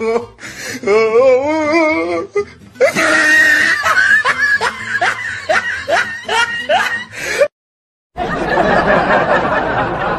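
Dubbed-in comedy laughter sound effects: a wavering, high-pitched laugh, then a quick run of 'ha-ha' laugh pulses that cuts off abruptly, and after a brief silent gap, a noisier burst of laughter.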